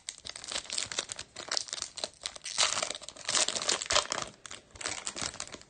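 Foil-lined trading card pack (Topps Chrome hobby pack) torn open by hand: a dense, irregular run of crinkling and tearing, with a brief lull about four seconds in.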